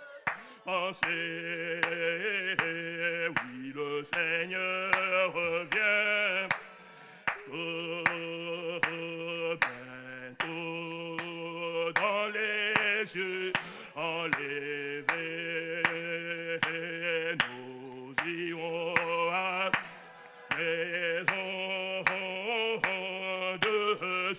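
Church congregation singing a French hymn, a man's voice at the front loudest, in long held phrases with short breaks every few seconds. Sharp ticks keep the beat throughout.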